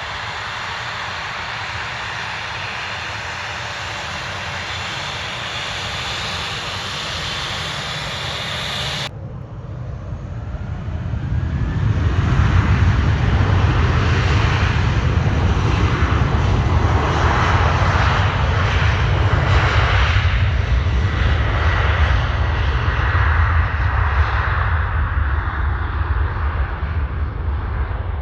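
Aircraft engine noise: a steady hiss that cuts off suddenly about nine seconds in, then a louder, deeper crackling rumble of a passing airliner's engines that builds and holds.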